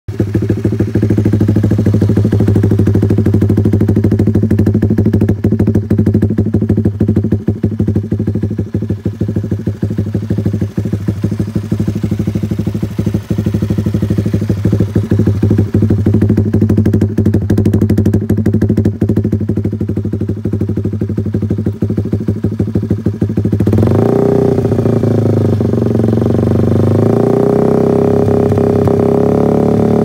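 Honda RS150's single-cylinder engine running through a black V-Max aftermarket exhaust, idling with a steady, rapid chugging. About 24 seconds in the engine is brought up to higher revs and held there, its note climbing slowly toward the end.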